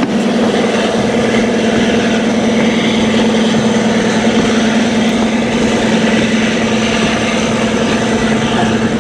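Diesel locomotives of a narrow-gauge White Pass & Yukon Route passenger train, working steadily: an even purr with a constant low hum, over the broad noise of the moving train.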